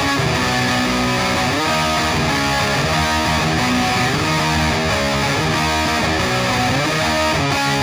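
Loud intro music: a rock track led by electric guitar, playing at a steady level.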